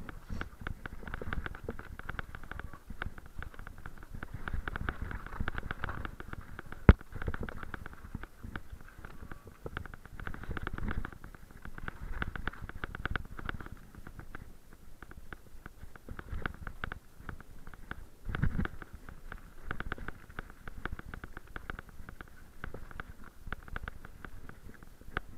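Mountain bike clattering down a loose, rocky trail, picked up close to the rider: a constant dense chatter of small knocks and rattles with tyres rumbling over stones, and one sharp hard knock about seven seconds in.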